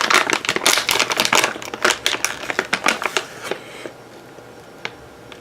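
Plastic packaging crinkling and rustling as a hand reaches in and pulls out a piece of smoked steak. It stops about three and a half seconds in, and a couple of faint clicks follow.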